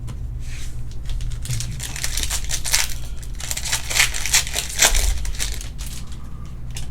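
Foil trading-card pack wrapper crinkling and being torn open, with a dense run of sharp crackles for several seconds.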